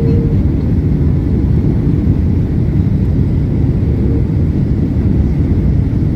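Steady low rumble of a Boeing 767 airliner, engine and airflow noise at an even level.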